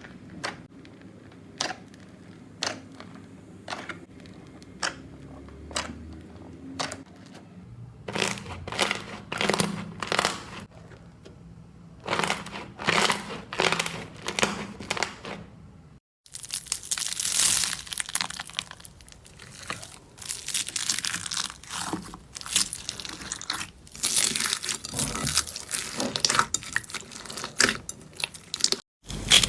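Slime being pressed and squeezed close to the microphone, giving sharp pops and crackles. Single scattered pops come first, then bursts of dense crackling that grow louder and nearly continuous in the second half.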